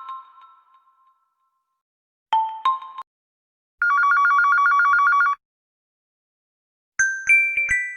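Huawei P30 lite ringtones played one after another. The last mallet-like notes of one tone fade out, a brief two-note chime sounds about two seconds in, and then comes a classic electronic telephone ring: a fast two-tone trill lasting about a second and a half. A new bell-like melody begins near the end.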